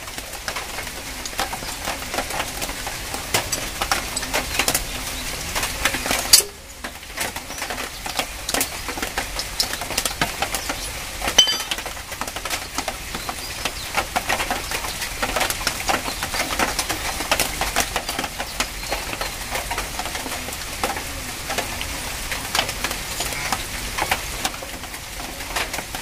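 Irregular small metallic clicks and rattles of a motorcycle front disc brake caliper being handled, as its retaining nut is undone and the worn brake pads are worked out. A bird calls in the background.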